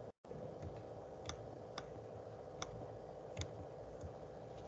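Faint, irregular clicks, about six over a few seconds, like clicking on a computer, over a steady hum of room tone.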